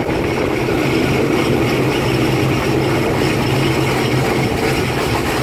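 Diesel railcar running steadily along the line, heard from inside a third-class carriage: a constant low engine hum under the rumble of wheels and carriage.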